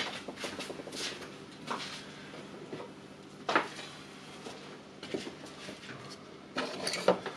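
Scattered light clicks and taps of tools and small parts being handled on a workbench, with a faint steady hum underneath.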